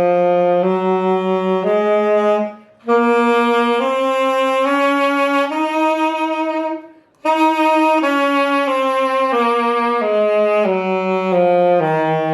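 Saxophone playing a C Dorian mode scale, one note at a time: it climbs step by step with a short breath partway, pauses briefly, then steps back down to the starting note.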